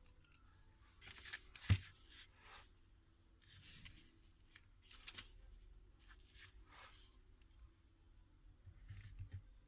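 Small handling noises of hands-on phone repair work: short scrapes and rustles of parts and tools on a bench, with one sharp click a little under two seconds in.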